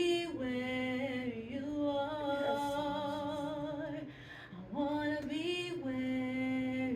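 A woman's voice singing unaccompanied, holding long notes with a wavering vibrato, in two phrases with a short break a little past the middle.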